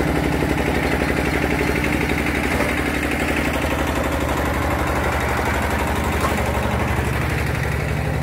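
Diesel engine running steadily with an even, rapid beat, driving a clay brick-making machine under load.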